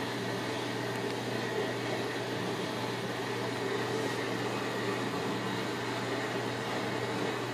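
Steady low mechanical hum with an even hiss, unchanging throughout: indoor room tone from a running appliance.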